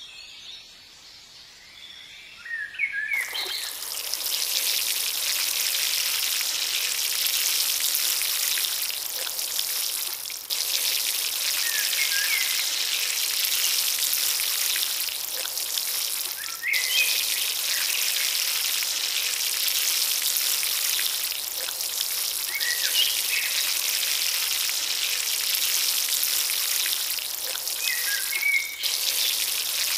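Water pouring from a small bucket onto sand, a steady high hiss like rain that starts about three seconds in and breaks off briefly a few times.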